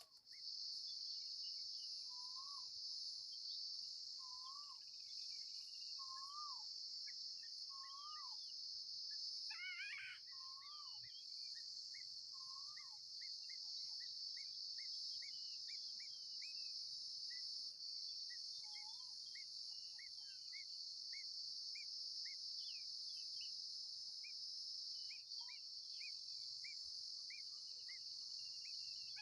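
A steady high-pitched insect chorus of crickets or cicadas, with bird calls over it. In the first half a whistled note repeats every couple of seconds. In the second half come short rising chirps about twice a second, the calls of young Eurasian golden orioles.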